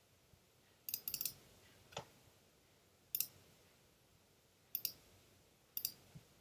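Computer mouse clicking: a quick run of clicks about a second in, a duller knock shortly after, then short double clicks repeating every second or so.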